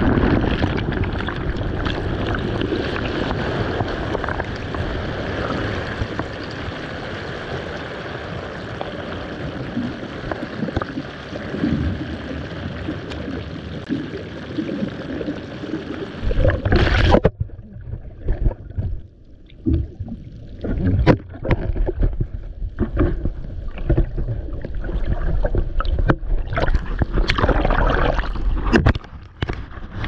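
Churning whitewater rushing over a submerged camera: a dense, steady hiss for about the first seventeen seconds. Then, after a loud splash, it turns muffled and low, with sloshing water and irregular knocks and splashes at the surface.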